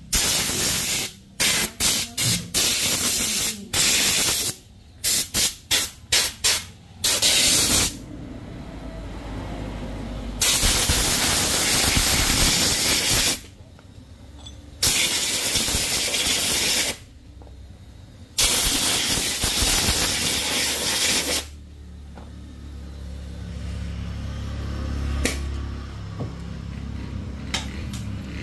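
Compressed-air blow gun hissing in blasts: a quick run of short bursts, then three longer blasts of two to three seconds each. A low steady hum rises near the end.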